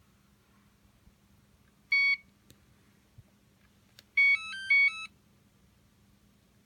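Hoverboard's electronics beeping: one short electronic beep about two seconds in, then a quick tune of several notes at different pitches about four seconds in.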